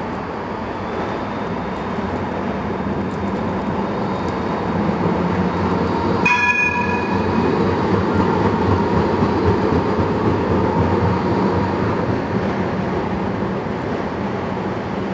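Street tram passing on rails: a steady rolling rumble that grows to its loudest midway and then eases off. A short ringing tone sounds about six seconds in.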